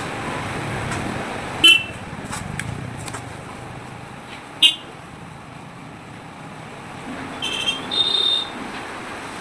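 Vehicle horns giving short toots over steady street traffic noise: one brief toot about two seconds in, another a few seconds later, and a cluster of several toots at slightly different pitches near the end.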